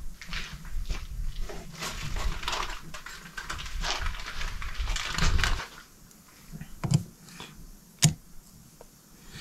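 Handling noise at a workbench: scraping and rustling for about five and a half seconds, then two sharp clicks as small metal transfer-case parts are handled.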